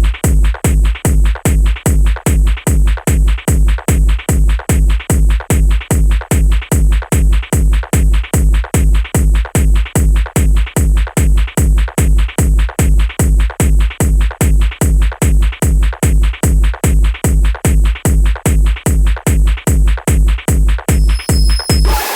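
Early hardstyle electronic dance track: a heavy kick drum pounds on every beat at a fast, even tempo under synth layers. Near the end the beat stops and a final ringing hit dies away as the track ends.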